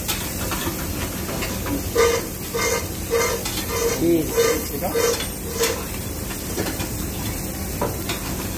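Burger patties sizzling on a flat griddle with a steady hiss. From about two seconds in, a seasoning shaker is shaken over them in a run of short taps, about two a second, for a few seconds.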